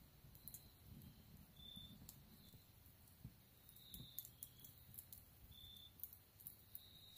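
Near silence: a wood fire in a stone fireplace crackles faintly with scattered soft clicks. Brief high chirps come and go.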